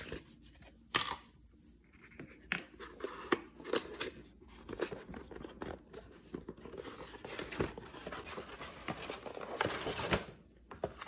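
Cardboard packaging and paper booklets being handled: a cardboard insert tray lifted out of its box and printed sheets leafed through, giving irregular light taps, scrapes and paper rustling, busiest near the end.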